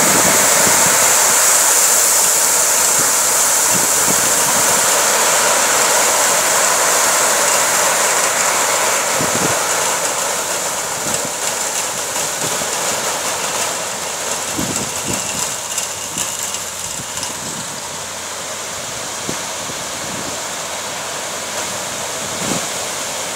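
River pebbles pouring and sliding off the raised body of a tipper semi-trailer in a steady rushing hiss, loudest at first and easing after about ten seconds, with scattered clacks of stones.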